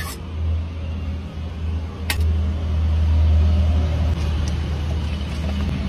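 Steady low rumble with a single sharp click about two seconds in.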